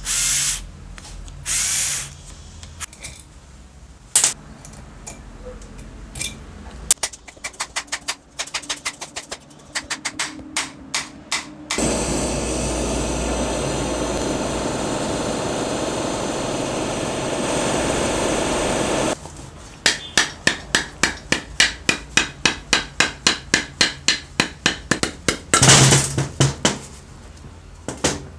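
Handheld gas torch flame hissing steadily for about seven seconds as it heats the aluminium motor housing of the circular saw. Then comes a fast run of sharp metal taps, about three a second, and one heavier knock near the end. Before the torch, scattered clicks and clatter of hand tools on the motor.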